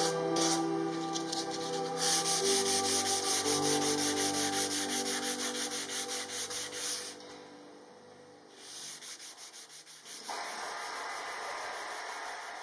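Sandpaper rubbed by hand along a hardwood table leg in rapid, even back-and-forth strokes, a dry rhythmic rasp. The strokes pause for about a second just past the middle, then pick up again.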